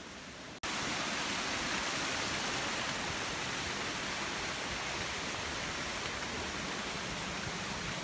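Steady rushing of a waterfall and its stream, with no distinct events, starting abruptly about half a second in.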